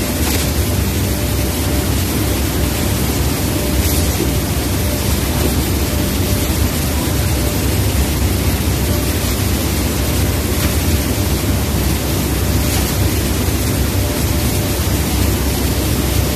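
Steady, loud factory background noise: an even rumble and hiss from plant machinery, with no clear rhythm or separate knocks.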